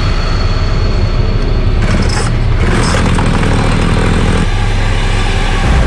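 Chainsaw engine running loud and steady at high revs.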